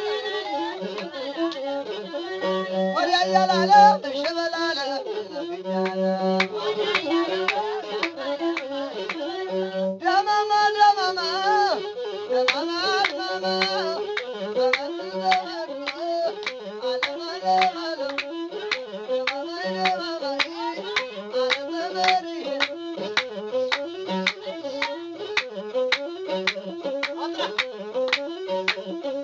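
Masinko, the Ethiopian one-string bowed fiddle, playing a winding, repeating melody over a steady beat in traditional azmari style, with no singing.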